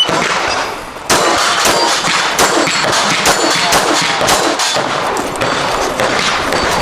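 Rapid pistol fire from a shooter running a practical shooting stage, starting about a second in as a fast string of shots with short pauses between groups. Steel targets ring with a clang when hit.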